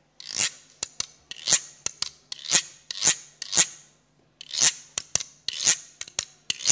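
Rhythmic swishing scrapes, about two a second, with small clicks between them and a short break about four seconds in.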